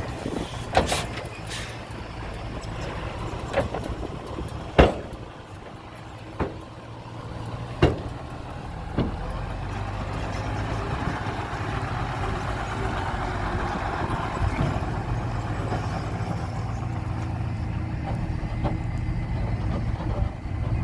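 Heavy diesel engine of construction machinery running, with several sharp clanks in the first half. The engine grows louder from about ten seconds in and then holds steady.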